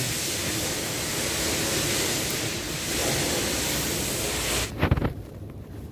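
A steady hiss that cuts off suddenly near the end, followed at once by a few quick knocks.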